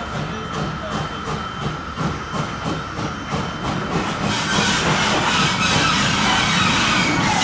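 Jeddo Coal 85, a 1927 Vulcan 0-4-0T saddle-tank steam locomotive, working with a rhythmic exhaust chuff, about two or three beats a second, over a steady steam hiss. About four seconds in the hiss grows louder and fuller.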